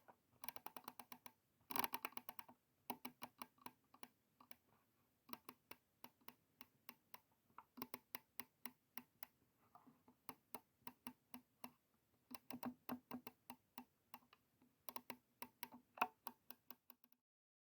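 Computer mouse buttons clicking in quick, uneven runs of sharp clicks, stopping shortly before the end.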